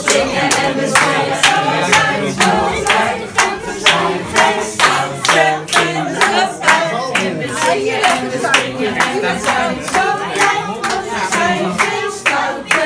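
A small group of people singing a Sinterklaas song together and clapping along in time, about two claps a second.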